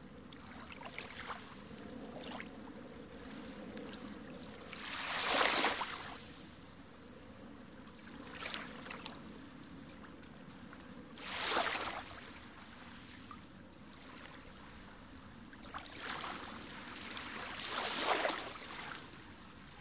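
Sea water washing against shore rocks, with hissing swells every few seconds over a steady rush; the strongest come about five, eleven and eighteen seconds in.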